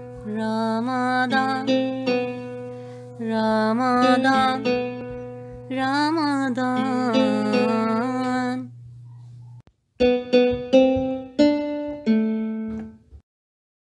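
Intro music: a melody of short pitched notes over a steady low drone, which drops out about ten seconds in; a few more notes follow and the music stops shortly before the end.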